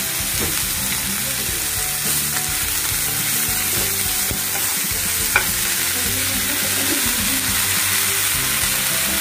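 Fenugreek leaves, peas and spices sizzling in hot oil in a non-stick pan while a spatula stirs them, with one sharp tick about five seconds in.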